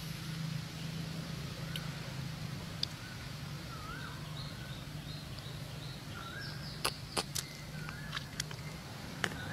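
Outdoor ambience: a steady low hum under faint, short wavering chirps that recur every second or two, with a few sharp clicks about seven seconds in and again near the end.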